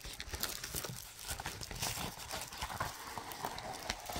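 Irregular light tapping and crinkling on a plastic-covered diamond painting canvas as a pineapple conure's claws step across it.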